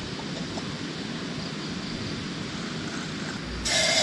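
Steady outdoor background hiss, then near the end water starts pouring from a bottle into a steel camp pot.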